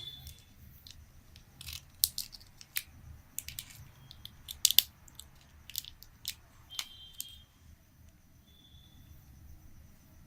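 Irregular sharp clicks and taps of hands handling a smartphone and its plastic and cardboard packaging, with a few short high beeps.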